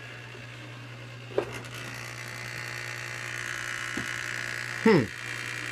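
Top-load washing machine running with its lid switch bypassed by a jumper wire: a steady electrical buzz, joined after a click about a second and a half in by a mechanical whir and rattle, with a short falling sound near the end. The owner puts the buzz down to loose jumper wires.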